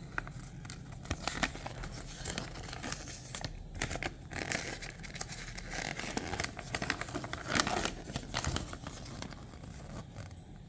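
Hands handling a small die-cast toy car and its plastic body-kit parts: scattered light clicks and crinkly plastic rustling, busiest around the middle and again about three quarters of the way in.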